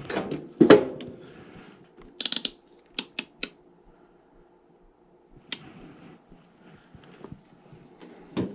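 Hands working on a furnace: a heavy knock about a second in, then a short rattle, three quick sharp clicks, and a few more scattered clicks and knocks of parts and tools being handled.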